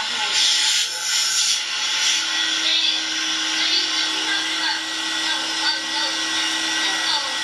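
Electric hair clippers running with a steady buzz as they cut a boy's short hair, under a constant hiss.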